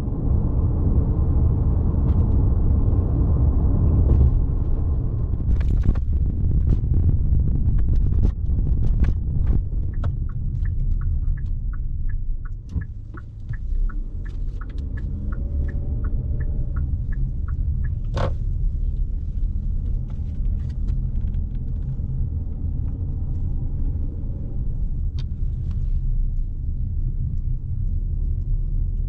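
Low rumble of an SUV driving, heard from inside the cabin, easing briefly about halfway through as the car slows. For several seconds in the middle a regular ticking about two a second, like a turn signal, runs over it, with a few scattered sharper clicks.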